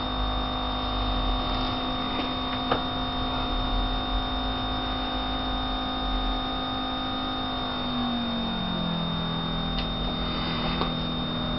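Electric fuel pump running with a steady hum. About eight seconds in, its pitch drops a step and holds there.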